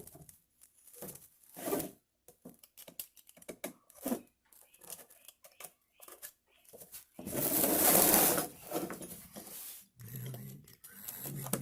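Handheld cutter slicing the excess screen mesh off along the edge of a window screen frame: a few short scratchy cuts, then a longer, louder cutting stroke lasting about two and a half seconds, in the middle of the stretch.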